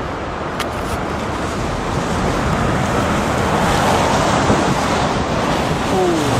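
Storm wind rushing and buffeting the microphone: a steady, loud rumbling hiss that swells slightly, with one brief click about half a second in.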